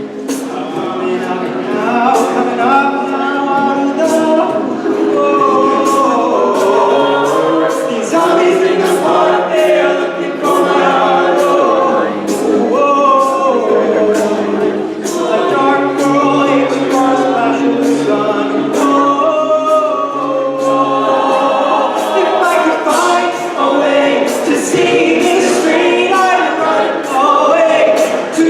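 A cappella group singing in close harmony over a sung bass line, with vocal percussion beatboxing a steady beat of sharp hi-hat-like clicks.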